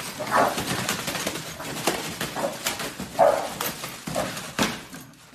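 Paper crackling and ripping as two dogs snatch and tear mail coming through a door's mail slot, with a few short barks among the rustling.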